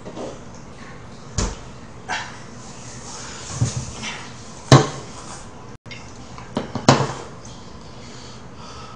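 Drink cans handled and set down on a tabletop: a few sharp knocks and clunks, the loudest about halfway through and another a couple of seconds later.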